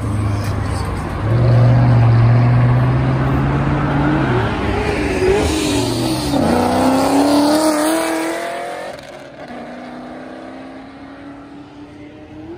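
Dodge Challenger's engine and exhaust accelerating hard past and away: a loud steady drone, then the pitch climbs, drops back at a gear change about six seconds in, and climbs again before fading into the distance.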